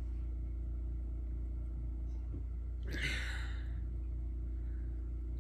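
Steady low hum of room tone, with a brief soft hiss about three seconds in.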